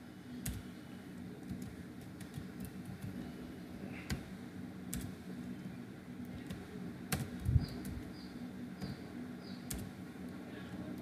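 Scattered keystrokes and clicks on a computer keyboard, one every second or two, over a low steady hum.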